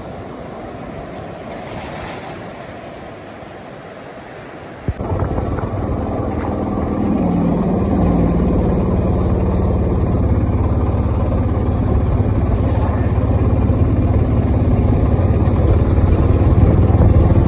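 Wind and surf on a rocky seashore. About five seconds in, this cuts to a vehicle's engine running steadily, heard from on board, growing louder as it drives along.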